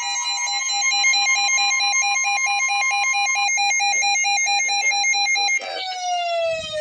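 Electronic emergency-alert attention tone for a river flood warning: a loud chord of steady high pitches, pulsing rapidly. About five and a half seconds in, the whole tone slides down in pitch.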